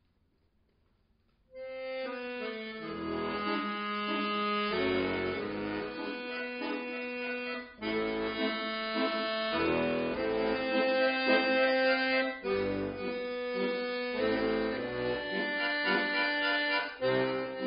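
Near silence for about a second and a half, then a chromatic button accordion (bayan) starts playing full, sustained chords and melody, with short breaks between phrases.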